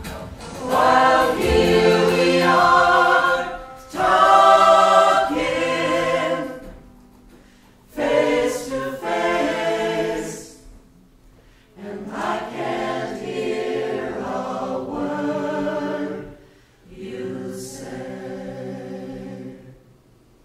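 Mixed-voice vocal ensemble singing held chords in about five phrases, each separated by a short pause, growing quieter over the last two phrases.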